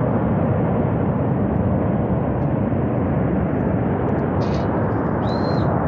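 Steady heavy roar of a flash flood of water and debris surging down a mountain river gorge, deep and continuous with no letup.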